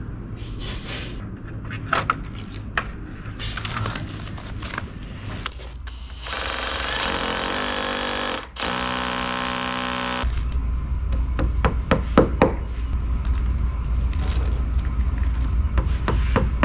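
Power drill boring into brick in two runs of about two seconds each, about six seconds in. Before and after the runs there are taps and clicks of tools being handled, and after them a low rumble.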